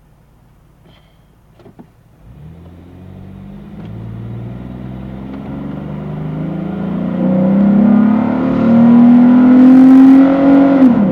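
2010 Jeep Wrangler JK's 3.8-litre V6 under acceleration, heard through an aftermarket MBRP exhaust with an AirRaid cold air intake. The exhaust note comes in about two seconds in and climbs steadily in loudness and pitch, then its pitch drops sharply near the end.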